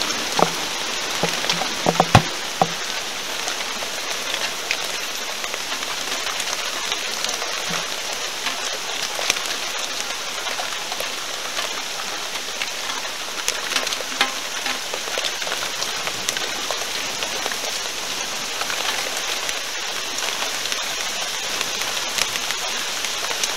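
Thunderstorm rain falling steadily, with sharp ticks of drops landing close by, several of them in the first three seconds.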